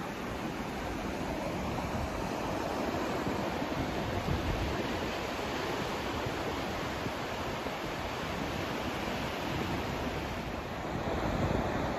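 Steady sleep-aid white noise: an even, unbroken hiss with no tones or rhythm, fuller in the lows than the highs.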